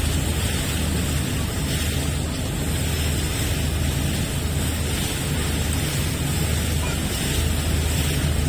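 A boat's engine running steadily with a low hum, mixed with wind blowing on the microphone and water rushing past the hull as the boat moves along.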